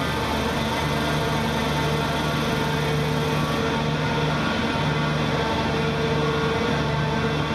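Steady mechanical drone of the Great Elephant of Nantes, a giant walking machine, its engine and hydraulic drive running as it moves. A low hum in it swells and drops every second or so.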